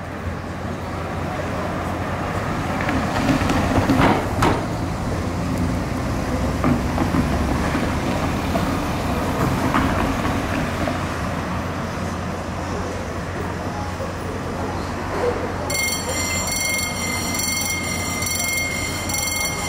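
Railway station platform ambience: a steady rumble of rail noise with a few knocks about four seconds in. About three-quarters of the way through, a steady high tone with overtones starts abruptly and holds.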